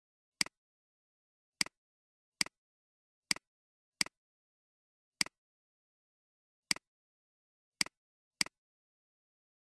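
Computer mouse button clicking nine times at uneven intervals, each click a quick press-and-release double tick, with dead silence between.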